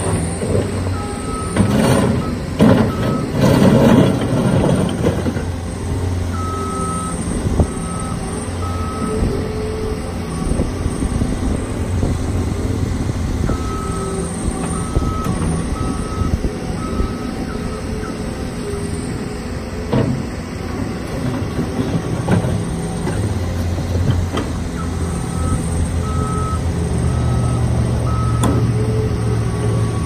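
Caterpillar 242B skid steer's diesel engine running under load as it works back and forth, its backup alarm sounding several runs of slow, evenly spaced beeps while it reverses. A burst of loud clanking comes a couple of seconds in, with a few single knocks later.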